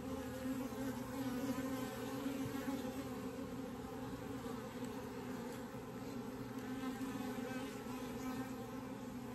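Honeybee colony in an opened hive buzzing: a steady, dense hum of many bees.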